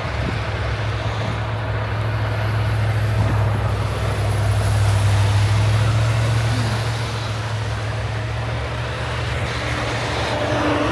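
Semi-truck diesel engine running with a steady low drone that swells louder through the middle and then eases back.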